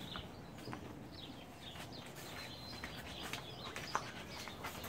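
Guinea pigs in a room full of cages squeaking faintly, with short high chirps scattered throughout and a sharp click about four seconds in.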